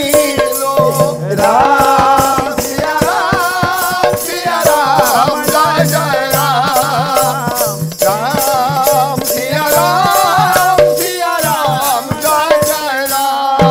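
Odia pala music: a woman sings long wavering melodic phrases of a few seconds each over a steady held drone note, with fast rhythmic jingling percussion.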